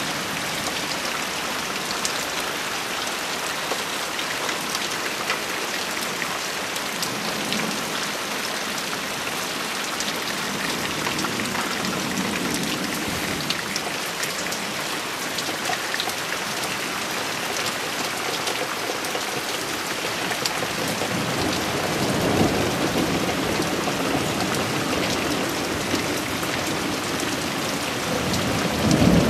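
Steady rain in a thunderstorm, with single drops tapping close by. A low rumble of thunder swells about two-thirds of the way through, and a louder clap of thunder breaks right at the end.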